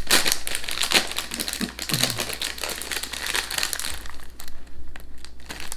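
Crinkling of a Quavers crisp packet being handled and turned over. The crinkle is dense for the first three seconds or so, then thins to sparser, lighter rustles.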